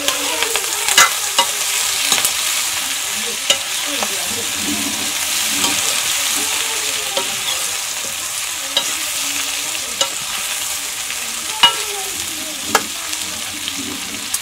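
Cauliflower pieces frying in hot oil in a metal wok, with a steady sizzle. A metal ladle stirs and scrapes through them, clinking sharply against the pan every few seconds.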